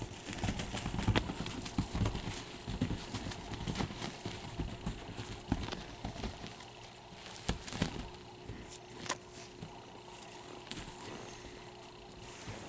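Irregular soft thumps and scuffs of a Bengal kitten pouncing and scampering on a textured bedspread while chasing a wand toy, busiest in the first few seconds and then scattered.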